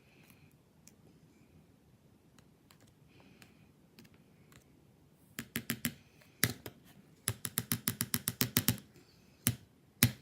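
Quiet for about five seconds, then runs of sharp rapid clicks: four, a single one, a fast run of about fourteen, then two more near the end.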